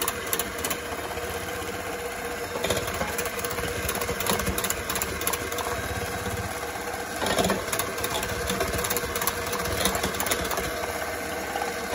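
Electric hand mixer running steadily, its beaters whipping egg, sugar and melted-butter batter in a plastic bowl, with a constant motor hum.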